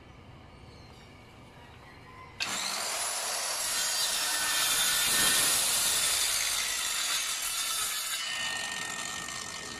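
Handheld circular saw switching on suddenly about two and a half seconds in and cutting steadily through plywood, then dropping slightly in the last second or so.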